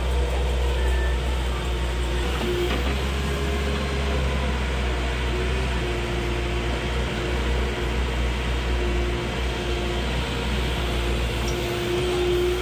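Manitou backhoe loader's diesel engine running steadily under load, heard from inside the cab as a deep drone, with a whine that rises and fades several times as the boom and bucket are worked.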